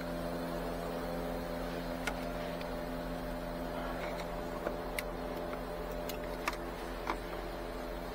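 About half a dozen light, sharp plastic clicks and taps as a flat screwdriver pries at the car's dashboard trim clips, over a steady low mechanical hum.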